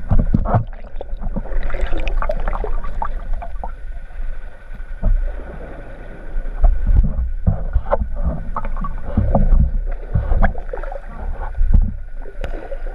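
Underwater water noise heard through a GoPro's waterproof housing: irregular muffled rumbles and swells with many short knocks as the camera moves through the water.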